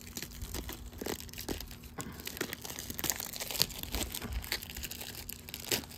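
A VHS tape's plastic clamshell case and its packaging being handled: a steady run of crinkling and small sharp clicks, with a louder click about three and a half seconds in and another near the end.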